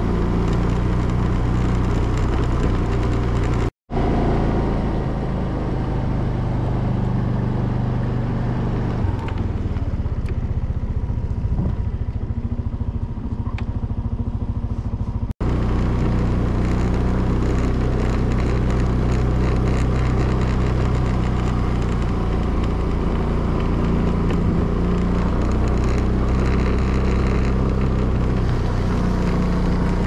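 Motorcycle engine running steadily as it rides along, easing off for a few seconds in the middle. The sound cuts out abruptly twice, for an instant each time.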